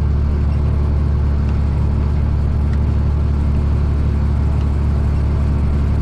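Tractor engine running steadily under load, driving a bush hog rotary cutter through heavy weeds, which it is cutting well.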